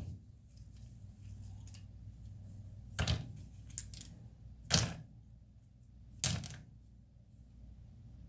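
Small metal diesel injector parts clinking against each other and the bench, about four sharp clinks spread over a few seconds, as a fuel injector is taken apart by hand.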